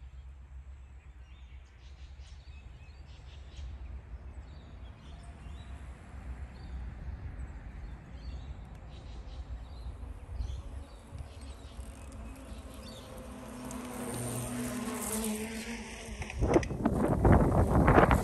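Faint insect-like buzzing over a low outdoor rumble, then wind rushing over the microphone that builds over the last few seconds and is loudest near the end, as the bike picks up speed down a steep hill.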